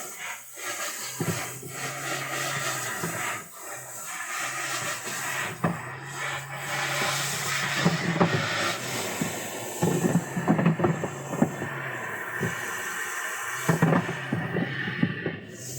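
Domestic pigeons cooing in a loft: low, drawn-out coos in stretches of a second or more, over a steady hiss, with scattered short taps and knocks from the birds moving about.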